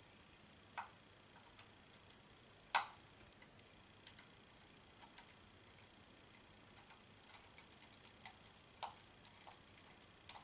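Small sharp clicks and taps of a precision screwdriver working a T5 Torx screw out of a white plastic camera housing: two clear clicks in the first three seconds, the second the loudest, then a scatter of lighter ticks.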